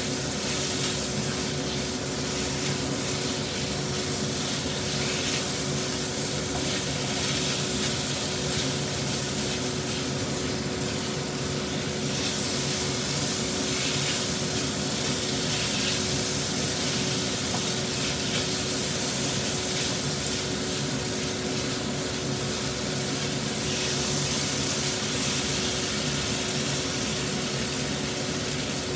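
Diced chicken sizzling steadily in hot oil in a nonstick frying pan, turned now and then with a spatula, over a steady hum.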